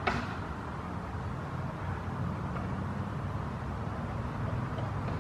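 Steady low rumble of distant traffic. Right at the start there is a single sharp crack: a black eastern gray squirrel biting through an acorn shell.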